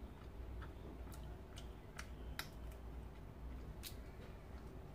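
In-shell roasted peanuts being cracked open between the fingers: a handful of short, sharp shell snaps at uneven intervals.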